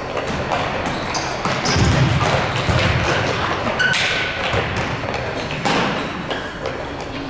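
Sounds of a youth soccer game: several dull thuds, heaviest about two to three seconds in, typical of the ball being kicked, with voices in the background.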